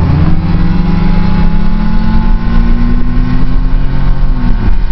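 Car engine accelerating, heard from inside the cabin over heavy road rumble. Its note climbs steadily for several seconds, then drops suddenly near the end as the transmission shifts up.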